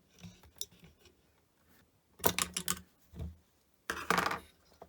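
Tool clicking and scraping as a capacitor is levered off the power supply's circuit board, in two bunches of sharp clicks, the first about two seconds in and the loudest about four seconds in.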